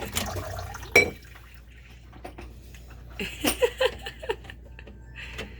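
Dirty drain water dripping and trickling from a disconnected garbage-disposal drain line under a kitchen sink, with one sharp knock about a second in.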